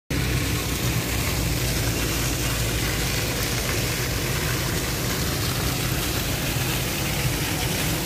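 Plaza fountain jets spraying and splashing onto the pavement: a steady hiss with a low hum underneath.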